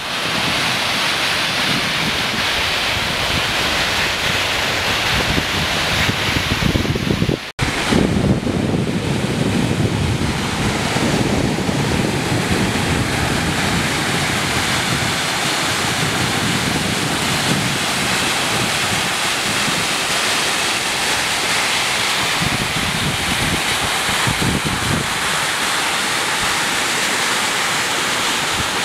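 Flash flood rushing down a canyon wash: muddy floodwater thick with hail churns in a steady, continuous roar. The sound cuts out for an instant about seven and a half seconds in.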